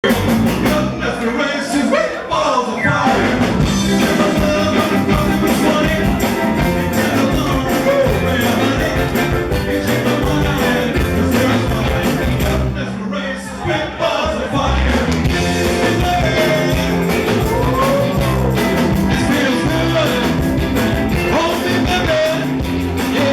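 Live rockabilly band playing a fast rock-and-roll song, with singing.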